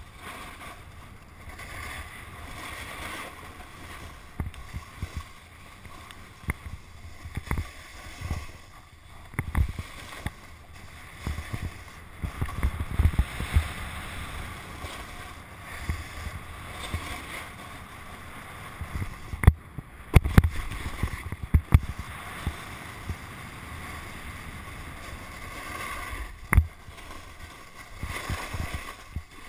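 Snowboard sliding and scraping over packed, tracked snow, a continuous hiss broken by several sharp knocks and thuds as it rides over bumps, the loudest about two-thirds of the way through.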